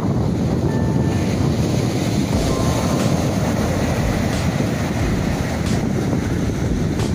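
Ocean surf breaking and washing up the sand, with wind buffeting the microphone and making a steady low rumble.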